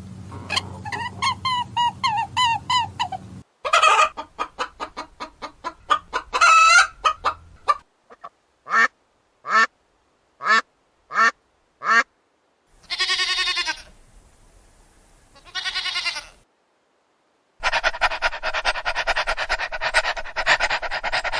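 Domestic fowl calling in a string of separate clips: rapid repeated calls, then a run of six short single honk-like calls about half a second apart, two longer calls, and a dense stretch of calling near the end.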